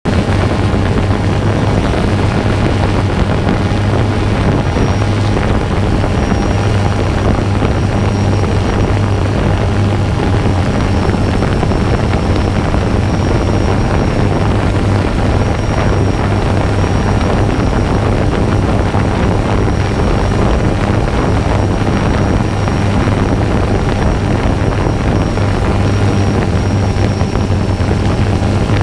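Quadcopter drone's propellers and motors buzzing steadily, picked up close on the drone's own microphone, with a thin high whine over a deep hum.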